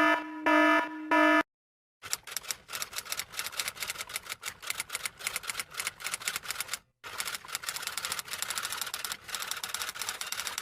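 A buzzer sounds in three short pulses, then stops. After a half-second pause comes a long run of rapid key clatter, like fast typing, broken once by a brief pause about seven seconds in.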